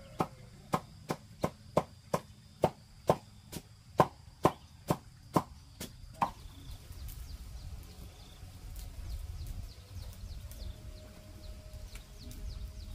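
Steady chopping blows, about three a second, that stop about six seconds in. After them come a low rumble and faint ticks.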